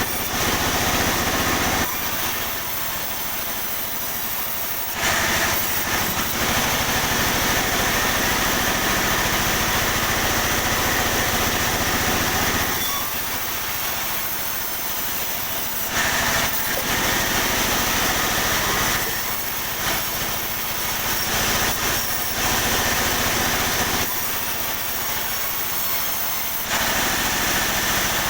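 Sawmill saw running and sawing pine, a steady mechanical whine that gets louder and quieter in turn every few seconds.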